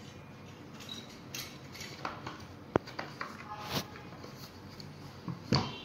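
Scattered light clicks and knocks of a Tefal steam iron's plastic housing and metal parts being handled and fitted together, with one sharp click about three seconds in.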